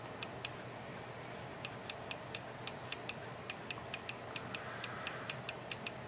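The small on-off microswitch in a Technics SL-D30 turntable's mechanism, worked by finger on its lever: sharp little clicks, two at first, then a rapid run of about four or five a second from about a second and a half in.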